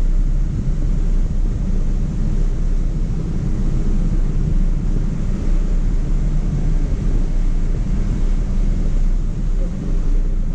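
Hummer H2's V8 engine running steadily as the truck drives a dirt trail, heard through a hood-mounted camera as a loud low rumble mixed with the rumble of wind on the microphone.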